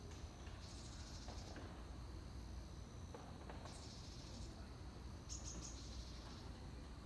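Faint high insect trills: three short buzzing bursts of about a second each over a steady high thin drone, with a low rumble of outdoor ambience underneath.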